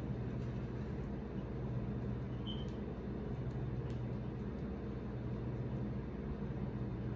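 Steady low hum, with a few faint light clicks.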